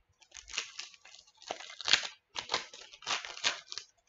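A trading card pack wrapper being torn open and crinkled in the hands, in a handful of short crackly bursts.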